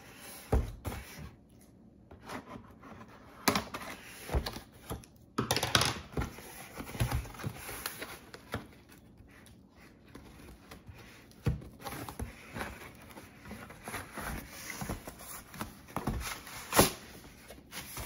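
Unboxing noises: packing material rustling and scattered knocks and clicks as a boxed cutting board is unwrapped and handled, with one louder knock near the end.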